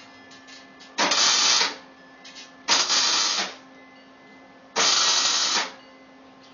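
Three short bursts of MIG welding, each under a second, crackling as the wire arc tacks steel exhaust-header tubing. A low steady hum runs underneath.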